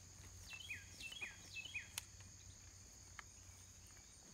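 Faint outdoor ambience: a steady high insect trill, with a bird giving a quick series of four or so descending chirps in the first half and two small clicks later.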